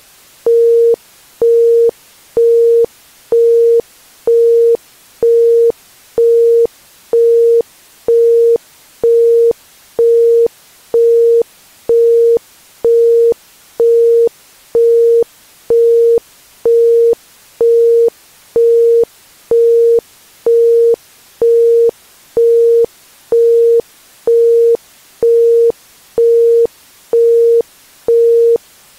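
Isochronic tone: a single 465 Hz pure tone pulsing on and off about once a second (1.05 Hz), evenly and without change, over a faint steady hiss.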